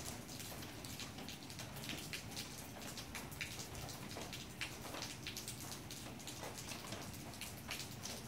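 Light rain dripping: a faint, continuous scatter of small irregular drop ticks.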